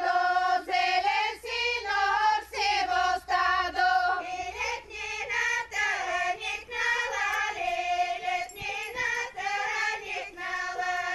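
A group of women singing a Bulgarian folk horo song to accompany the ring dance, high, strong voices in short phrases with brief breaks between them.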